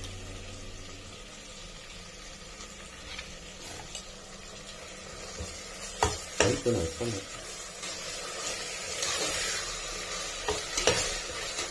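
Onion-tomato masala with mint and coriander frying in a pan with a light sizzle, stirred by a spoon that scrapes and knocks against the pan. There are a few sharp knocks about six seconds in and again near the end, and the sizzle grows louder in the second half.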